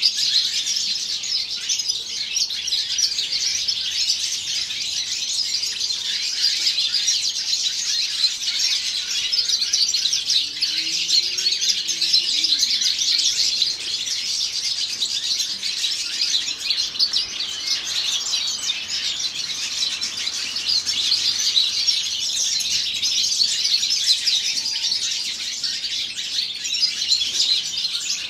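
Seven-month-old male European goldfinch singing: a long, unbroken run of fast, high twittering notes.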